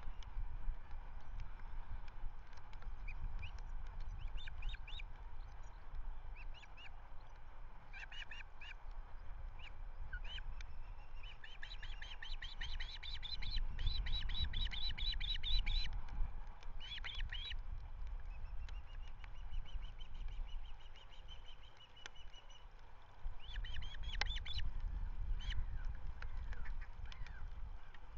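Ospreys calling at the nest: repeated series of short, high-pitched whistled chirps, densest in a long run in the middle and again near the end, over a constant low rumble of wind on the microphone.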